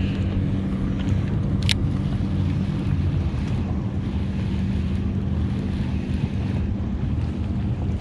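Boat motor running steadily with a low hum, under wind buffeting the microphone, and one sharp click a little under two seconds in.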